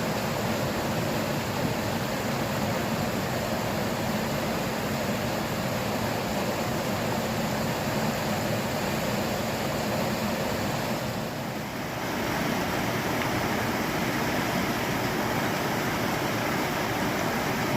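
Steady rush of cascading creek water. It dips briefly about eleven seconds in.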